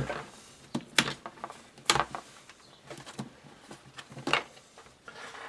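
A hard plastic pistol case being opened and its contents handled: a few sharp plastic clicks, the loudest about one, two and four seconds in, between quieter handling sounds.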